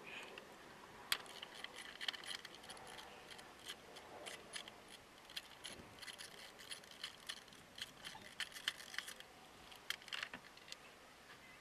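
Metal hand tools clicking and clinking: a socket extension being worked around the engine's ignition coils, with many short irregular metallic clicks that are thickest through the middle.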